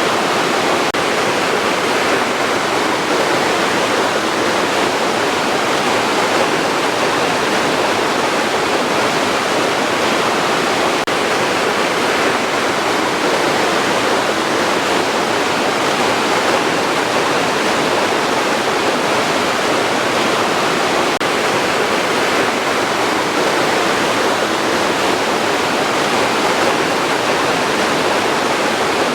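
Running water rushing steadily, an even unbroken roar with no pauses or surges.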